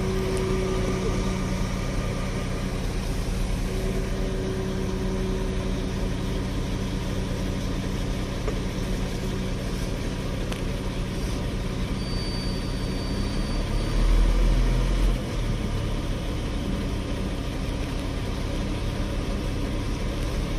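Dump truck's diesel engine idling steadily at low rpm just after starting, with a brief louder low swell about fourteen seconds in. No fuel knock shows at idle, the fault being checked for.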